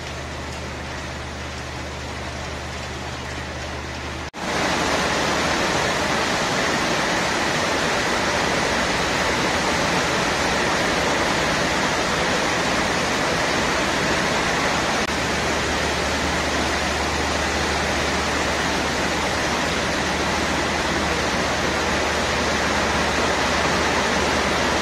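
Steady rushing hiss with no clear pattern. It drops out for a moment about four seconds in, then comes back louder.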